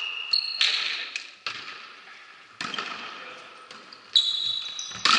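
A volleyball is struck several times during a rally, each sharp hit echoing around a sports hall, with short high squeaks of shoes on the court floor.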